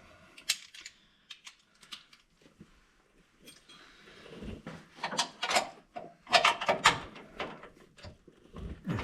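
Metallic clicks and clanks of a socket wrench being fitted and turned on the bolt of a nutsert setting tool, with a cluster of louder clanks about halfway through.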